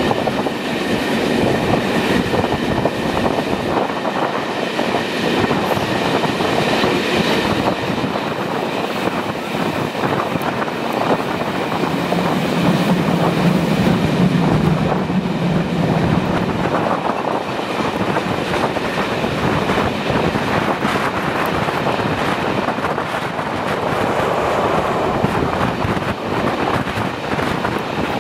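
Passenger train running along the track, heard from an open coach window: wheels clattering over the rails with a steady rush of air. A low hum comes up for about four seconds midway.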